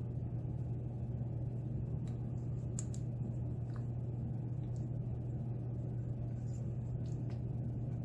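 Steady low hum, with a few faint, light clicks of small metal lock parts being handled as the plug of a pin-tumbler lock is worked out.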